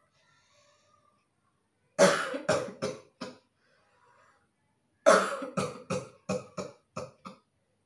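A person coughing in two fits: a run of about four hard coughs about two seconds in, then a longer run of about eight coughs a few seconds later, each run fading as it goes.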